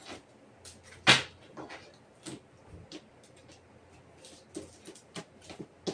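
Tarot cards being handled and laid down on a wooden table: a string of short slaps and taps, the loudest about a second in.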